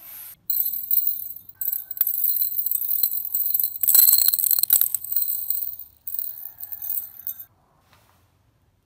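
White crystal granules poured into an empty glass beaker, tinkling and ticking against the glass. The pour is heaviest midway, then thins out and stops.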